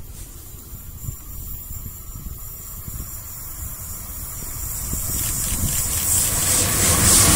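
Wind buffeting a smartphone microphone beside a railway line, with a rushing noise that builds from about five seconds in and is loud near the end, as a train approaches.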